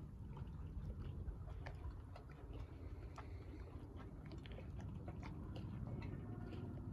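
Quiet waterside ambience: a steady low rumble with scattered faint clicks and ticks.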